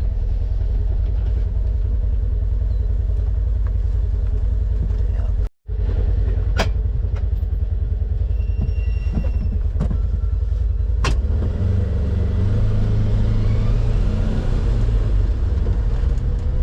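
Vehicle driving over rough ground, a heavy steady low rumble with a few sharp knocks. The sound drops out for a moment about five and a half seconds in.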